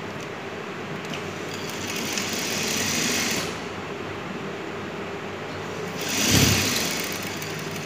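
Industrial lockstitch sewing machine humming steadily, with a stretch of stitching about two seconds in and a louder short run about six seconds in, as the fabric is fed under the presser foot.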